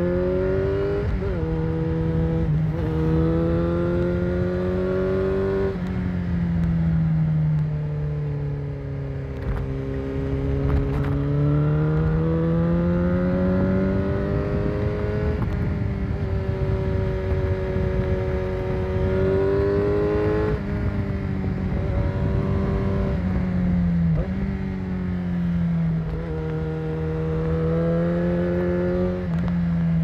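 Motorcycle engine under way, its pitch rising and falling with the throttle, with several quick drops in pitch as it shifts gear, over a steady low rush of wind.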